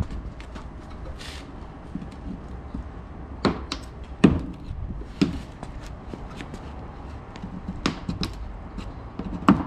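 Plastic pry tool working the stock rear diffuser and bumper clips of an Audi S4 loose: irregular sharp plastic clicks and knocks, about five loud ones among fainter ticks.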